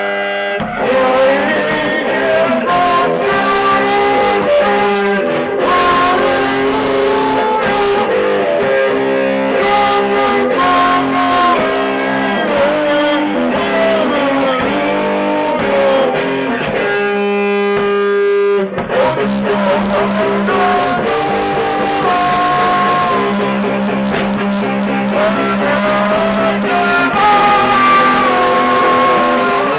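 A Christmas carol played live, led by guitar, with a moving melody over held lower notes.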